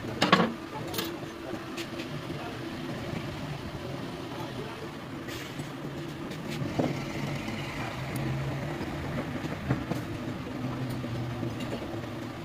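A sharp metal clink about a third of a second in, then a few lighter clicks of steel parts and tools being handled on a bare engine block. Under them runs a steady low mechanical drone.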